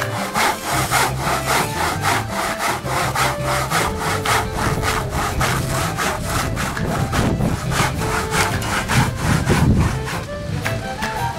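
Rapid, rhythmic scraping strokes, about five a second, that stop about a second before the end.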